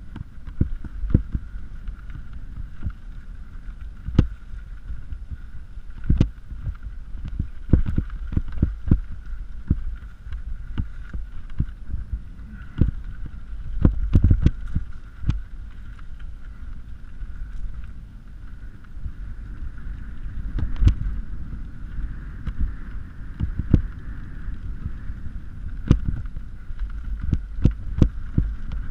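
Mountain bike ridden over a loose-gravel forest trail, heard from an onboard GoPro: a steady low rumble of tyres and movement, broken by frequent irregular sharp knocks and rattles as the bike goes over bumps, with a dense cluster of them about halfway through.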